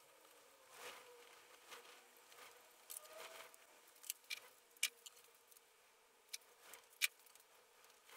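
Faint, scattered metallic clicks and ticks from an M6 hand tap and tap wrench being worked into drilled holes in a metal plate, with the sharpest click near the end.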